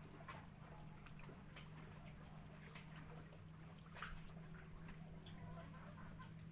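Near silence: a faint steady low hum with a few scattered faint clicks or chirps, one slightly louder about four seconds in.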